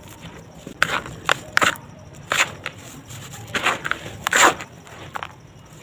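Dry sand-cement mix crunching and crumbling as hands grab and squeeze it in a plastic tub, in a series of crisp gritty bursts about once a second. The loudest comes a little past the middle.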